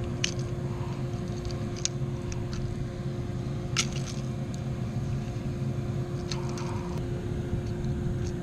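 Steady wind rumble on the microphone under a faint electrical hum, with a handful of sharp clicks and ticks spread through: small handling noises while a largemouth bass is worked off a jerkbait's hooks.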